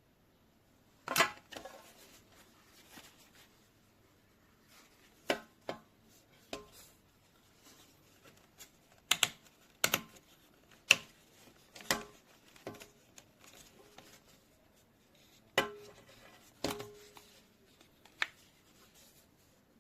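Objects handled on a hard surface: about a dozen sharp clicks and knocks at irregular intervals, with light rustling in between.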